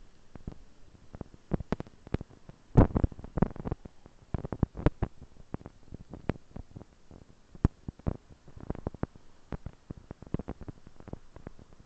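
Irregular clicks and knocks, with a denser, louder cluster about three seconds in: the camera rattling in its mount on a bicycle as it rides along the lane.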